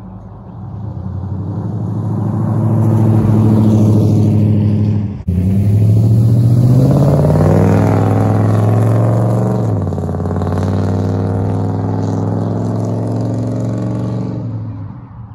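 2002 2500HD pickup's 6.0-litre V8 accelerating hard as the truck comes up and passes. The engine note builds, breaks off for an instant about five seconds in, climbs steeply in pitch, drops near ten seconds, then holds steady and fades as the truck drives away.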